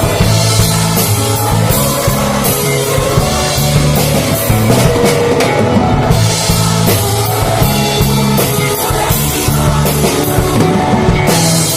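Live church worship music: a band with drum kit and bass playing a hymn, with voices singing.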